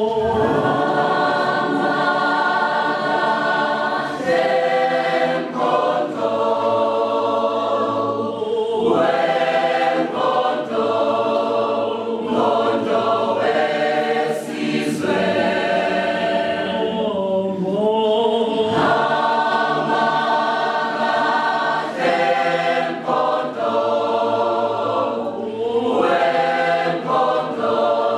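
Mixed choir of men's and women's voices singing a cappella in harmony, in phrases a few seconds long with short breaks between them.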